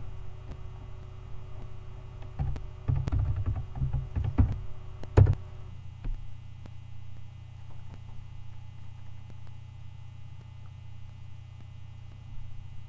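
Computer keyboard keys typed in a quick run for a few seconds, ending with one sharper keystroke, over a steady low electrical hum.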